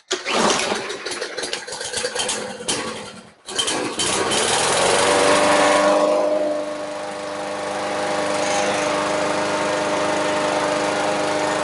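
A push lawn mower's small single-cylinder engine sputters unevenly, cuts out briefly, then catches a few seconds in and runs steadily. It settles to a lower, even speed about halfway through.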